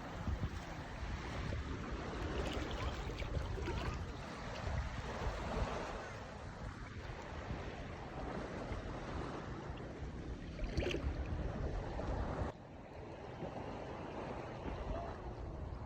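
Sea water washing and lapping, with wind rumbling on the microphone. The level drops abruptly about three quarters of the way through.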